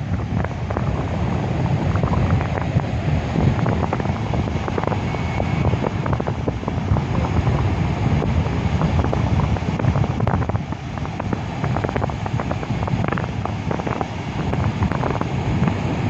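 Wind buffeting the microphone in a steady low rumble, over the continuous wash of sea surf.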